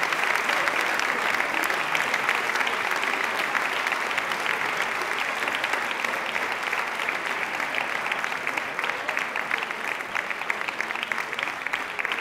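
Audience applauding, a steady patter of many hands clapping that slowly eases off over the last few seconds.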